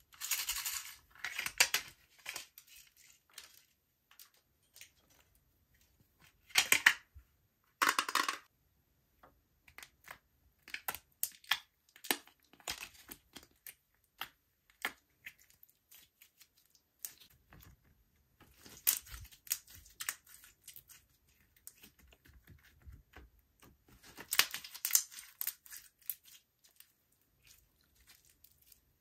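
Slime and its add-ins being pressed, stretched and mixed by hand, giving crackles, pops and clicks. They come in bursts of a second or two, the loudest two short ones about seven and eight seconds in, with scattered ticking between.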